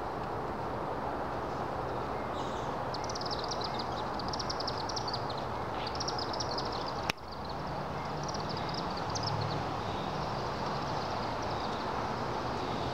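Chimney swifts chittering: runs of rapid, high-pitched twittering calls over a steady background noise. A single sharp click about seven seconds in.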